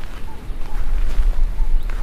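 Outdoor ambience: a deep, loud low rumble, with a short high chirp, like a small bird's call, repeating about twice a second over it.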